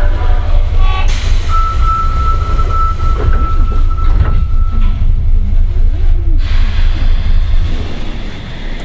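Sendai Subway Namboku Line 1000 series train running between stations, heard from inside the car: a heavy low rumble of the wheels and running gear on the rails. A thin steady high tone sounds from about a second and a half in to about five seconds in, and the sound gets quieter near the end.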